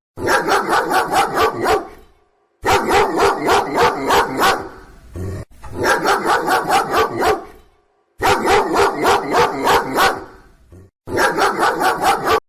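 A dog-bark ringtone: the same phrase of about eight to ten quick, evenly spaced yapping barks repeats five times with short pauses between.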